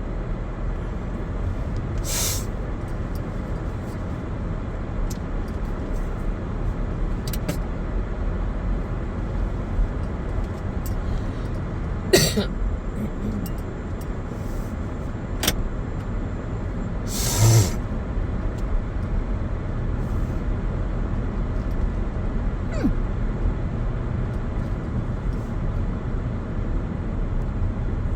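Steady low rumble of a car on the move, with a few brief sharp knocks or clicks scattered through.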